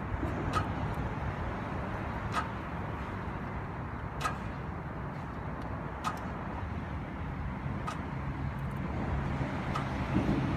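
A steady low engine drone, with a short sharp tick about every two seconds.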